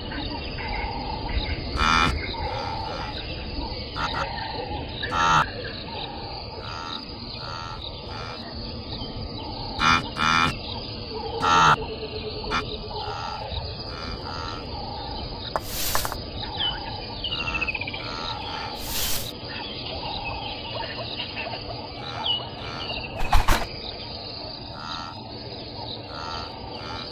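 Savanna wildlife ambience: a steady bed of insects and birds, with a few short pitched animal calls. Several quick falling bird whistles and a few sharp clicks come through.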